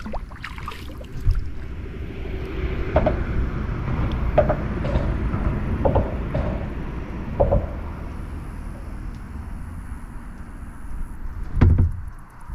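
Kayak being paddled: short knocks and splashes of the paddle come about every second and a half, over a steady low rumble of water and air on the hull-mounted camera. There is a louder knock near the end.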